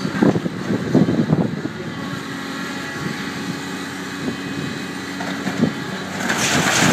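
Doosan DX300LC excavator working on demolition: its diesel engine runs under load, with a few heavy knocks in the first second and a half and a loud rushing noise near the end.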